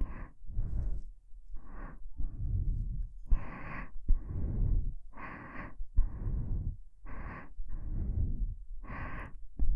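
Slow, even breathing right into a KU100 binaural dummy-head microphone: about eleven breaths, in and out in turn, one full breath roughly every two seconds, each with a rush of air on the microphone.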